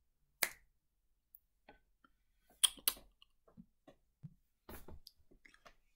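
A handful of small, sharp clicks and taps at irregular intervals, the loudest a quick pair about two and a half seconds in.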